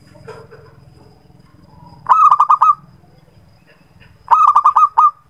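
Zebra dove (perkutut) calling: two short runs of quick, clipped cooing notes, about five notes each, a couple of seconds apart.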